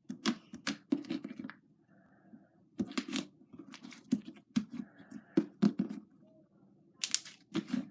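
Irregular sharp clicks and crackles, many in a row with a couple of short pauses, over a low steady hum.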